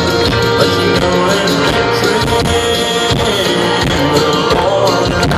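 Live country band playing, with acoustic guitar, upright bass and drums, heard from within the audience, with the crowd clapping along.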